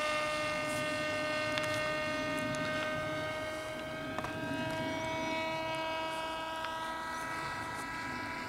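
HobbyKing SuperG 1080 RC model aircraft flying a pass: a steady high whine from its motor and propeller with several even overtones, its tone shifting slightly about four seconds in.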